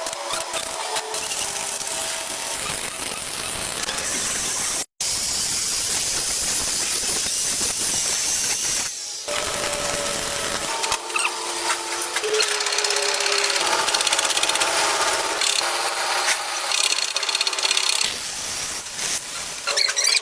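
Workshop power-tool and machinery noise: a steady mechanical whirring with a hiss and wavering tones, broken by a sudden cut about five seconds in.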